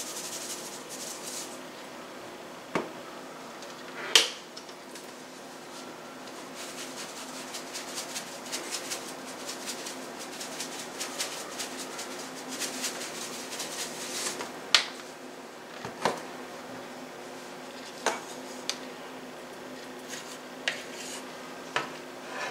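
Kitchen handling sounds while raw chicken breasts are seasoned with salt and pepper: sharp clinks and knocks of dishes and utensils scattered through, the loudest about four seconds in, with a stretch of fast fine ticking in the middle, over a steady low hum.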